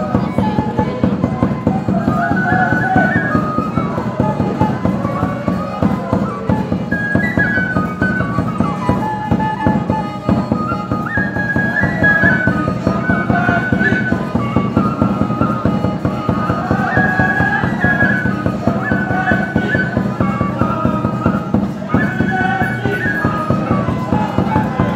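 Small wooden flute playing a lively traditional melody of short, stepping phrases over a dense, steady percussive beat.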